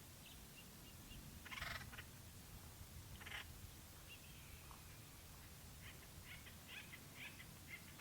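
Acorn woodpeckers calling: two harsh, raspy calls about one and a half and three seconds in, followed by a run of short, quieter notes near the end.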